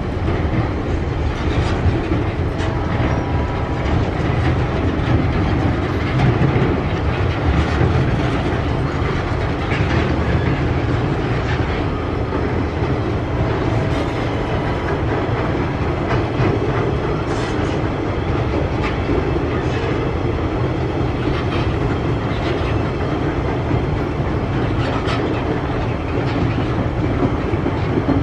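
Empty flat wagons of a TasRail freight train rolling past close by: a steady rumble of steel wheels on rail, with scattered clicks and clanks.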